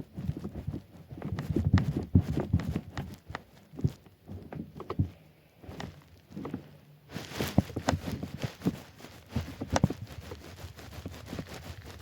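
A bed stacked with two mattresses and a cotton comforter taking irregular thumps and creaking as someone jumps and tramples on it. A steady hiss comes in about seven seconds in.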